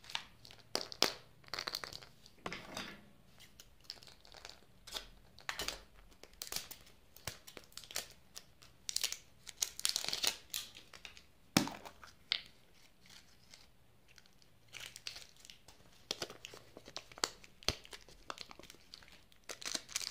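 Wrapper crinkling and tearing as the wrapper is peeled off a surprise egg's white plastic capsule, with a small plastic candy packet handled near the end. It comes as an irregular run of crackles and light clicks, with one sharp click about halfway through.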